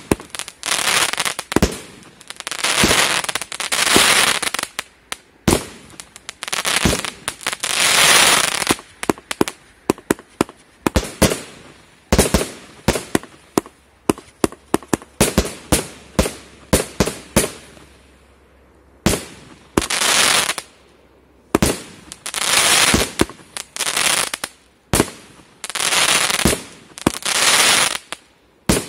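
136-shot firework cake firing in rapid succession: sharp reports from the shots and bursts, alternating with longer crackling bursts, with a brief lull about two-thirds through.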